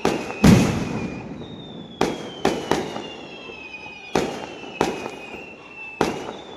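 Fireworks going off: about eight sharp bangs at uneven intervals, the loudest about half a second in. A high whistling tone sliding down in pitch runs underneath.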